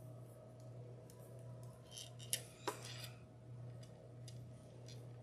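Plastic pony beads clicking lightly and lacing cord rustling as beads are handled and threaded. A few sharp little clicks come about two to three seconds in, over a faint steady hum.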